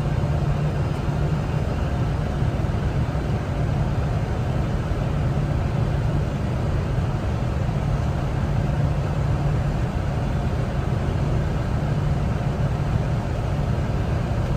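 Steady cockpit noise of a Boeing 747-400 on short final: a continuous rush of airflow over the flight deck with a low, even engine hum underneath.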